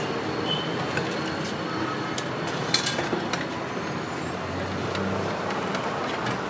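Steady road traffic noise, with a few sharp clinks of steel serving utensils a little before halfway.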